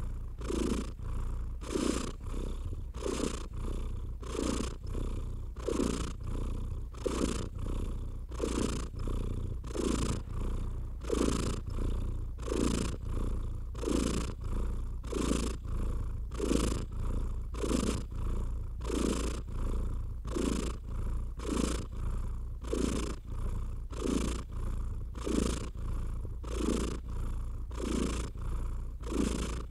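Domestic cat purring steadily, in an even rhythm of pulses that follows its breathing in and out.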